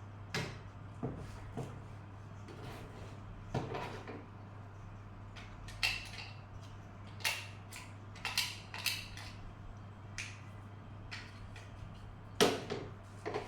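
Scattered clicks and knocks of small hard parts and tools being handled while an extension-cord socket is worked on, over a steady low hum; the sharpest knock comes near the end.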